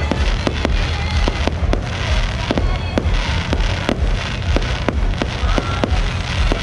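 Aerial fireworks bursting: rapid, irregular bangs, several a second, over a steady low rumble.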